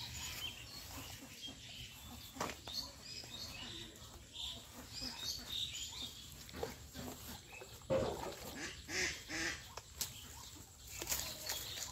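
A long wooden pole prodding and stirring through dense water plants and mud in a shallow pond: irregular rustling with a few knocks, the loudest about two and a half and eight seconds in. Short animal calls sound over it.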